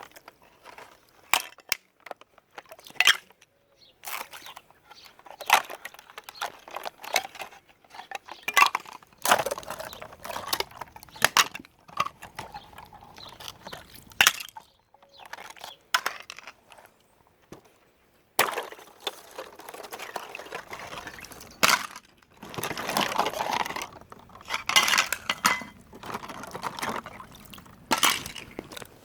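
Water being poured into a bird bath or water dish, with many sharp knocks and clinks of the container being handled.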